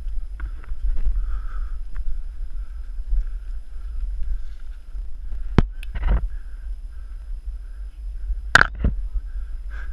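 Steady low rumble of wind and movement on a body-worn action camera's microphone during a steep scramble up a trail. A few sharp knocks and scrapes past the middle and near the end, from hands and feet catching on branches and ground.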